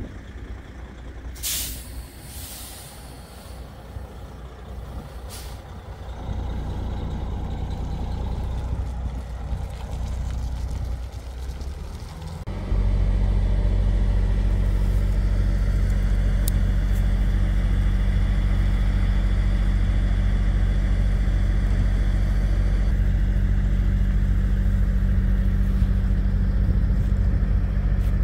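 Heavy diesel trucks at a recovery scene: a couple of short hisses of released air near the start over a quieter engine, then, about halfway through, a heavy truck's diesel engine running loud and steady at idle.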